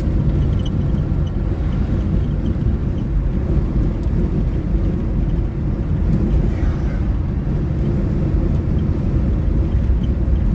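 Steady cabin drone of a 1998 Chevy C1500 pickup cruising at about 65 mph on the highway: engine and road noise at constant speed.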